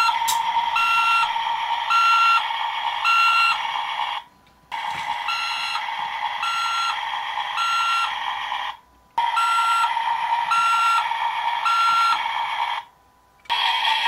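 Electronic sound effects from a Caterpillar "Big Builder" toy backhoe loader: a steady buzzing electronic hum with a warning beeper going three times about a second apart. The loop plays three times, with a short break between loops.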